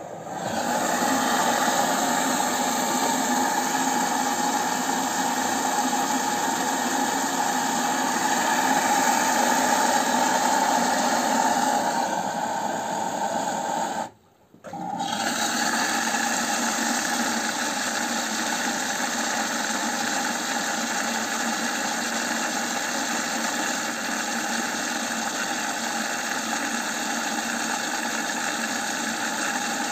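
Samsung WF0800NCE front-loading washing machine running its drum-clean cycle: a loud, steady motor hum with rattle and vibration from the turning drum. It swells up in the first second, cuts out for about half a second around the middle, and then carries on steadily.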